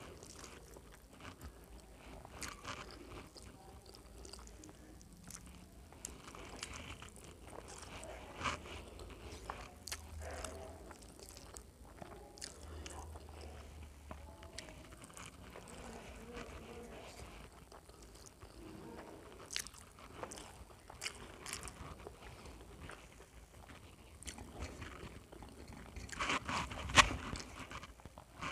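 A person eating rice by hand: chewing and wet mouth sounds, with fingers mixing and scraping rice on a steel plate. Scattered small clicks run throughout, with a louder cluster near the end.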